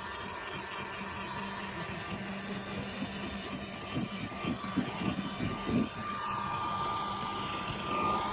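Miniature vacuum cleaner running steadily while cleaning a car interior. Its hum gives way to a higher steady whine about six seconds in, and there are scattered short rattles between about four and six seconds, typical of debris being sucked up.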